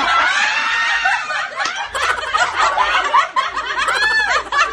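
A group of people laughing loudly together, several voices overlapping, with a high squeal of laughter near the end.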